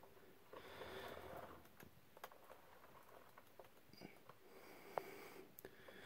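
Near silence: a faint breath and a few soft handling clicks.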